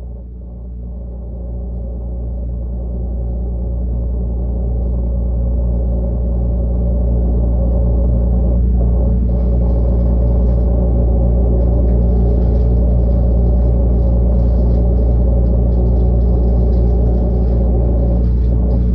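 Refrigerator running: a steady low hum with several fixed tones, which grows louder over the first several seconds and then holds steady.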